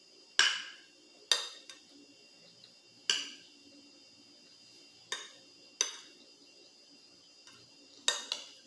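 Metal cutlery clinking and scraping against a glass plate while food is scooped up: about seven sharp clinks at irregular intervals, each ringing briefly, two of them close together near the end.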